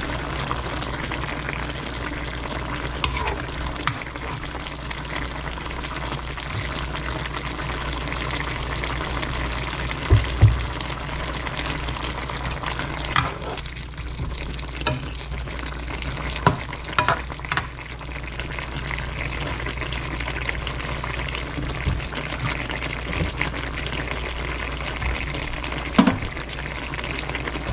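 Chicken adobo with potatoes and carrots simmering in its sauce in a wok with a steady sizzle. A spatula and spoon give occasional sharp clicks and scrapes against the pan as the stew is stirred.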